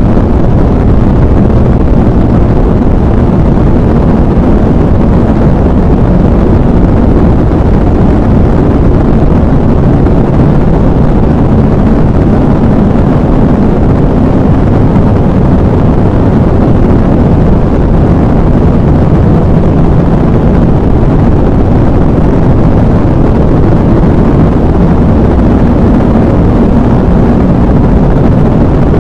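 Subscale rocket engines hot-firing on a test stand: the exhaust makes a loud, steady, deep rushing rumble that holds level throughout.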